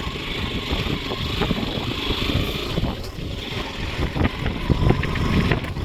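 Motorbike running along a rough road, with wind buffeting the microphone and irregular knocks and rattles from the bumps.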